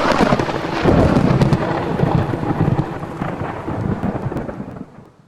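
Thunderstorm: thunder and rain, fading out near the end.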